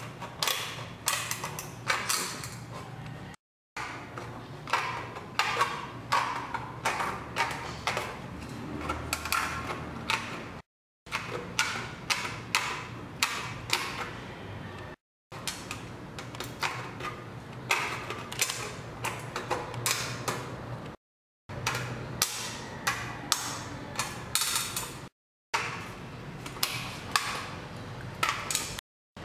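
Aviation snips cutting a curved hole in a corrugated galvanized steel roofing sheet: a quick run of crisp metal snips, several a second, broken by several short silences.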